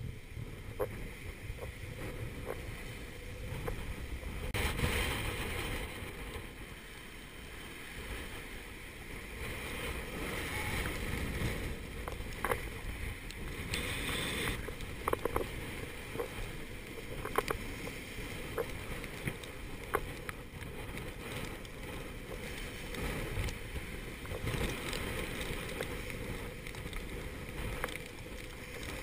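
Gale-force wind buffeting the microphone and breaking seas rushing past the stern of a sailboat running downwind, swelling in hissing surges now and then. A few sharp knocks stand out here and there.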